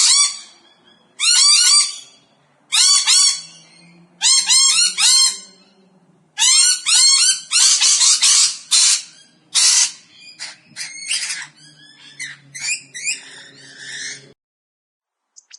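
Parrots squawking: loud, harsh calls in repeated bouts, some as quick runs of arching notes, cutting off suddenly near the end.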